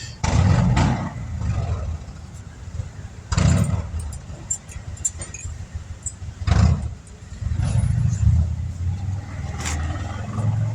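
Metal clinks and knocks of brake-pad hardware being handled and seated on a disc brake caliper bracket, four sharp ones about three seconds apart, over a steady low rumble.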